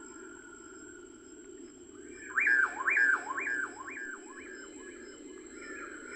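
A bird calling: a loud run of about six notes in quick succession, each sweeping up and then dropping, lasting about a second and a half, with fainter bird calls around it over a steady hiss.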